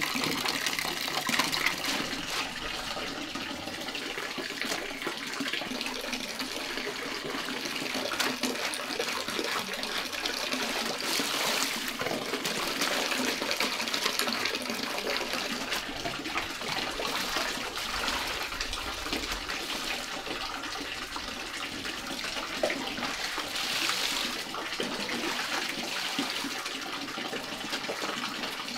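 Clothes being hand-washed at a concrete washbasin: water splashing and sloshing, with irregular scrubbing and slapping of wet cloth.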